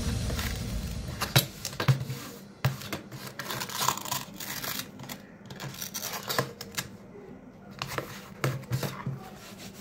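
Scattered clicks, taps and short scrapes of fingers working at a plastic mop plate and its cloth mop pad on a stone countertop, as the pad is worked loose.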